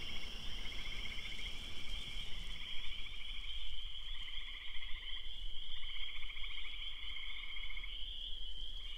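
Chorus of frogs calling from the lake shore: a dense, steady high trilling, with overlapping pulsed trills about a second long repeating at a lower pitch.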